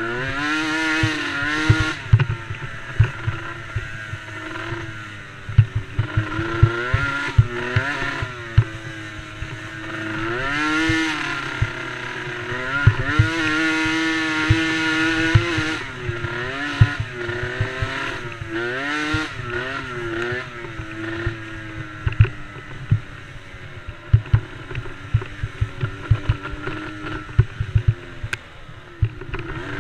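Small racing ATV engines revving, their pitch rising and falling again and again as the throttle is worked, with more than one engine at times. Frequent short low thuds run underneath.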